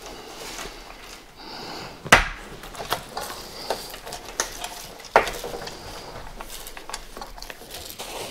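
Sharp clicks and light knocks, the loudest about two seconds in and again about five seconds in, over soft rustling: a projection screen's material being handled and its snap buttons pressed onto the metal frame.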